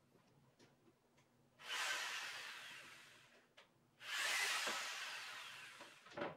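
Stanley corded jigsaw triggered twice, running briefly each time and winding down as the trigger is released, with a click near the end. The jigsaw runs on the wall outlet, showing the outlet is live.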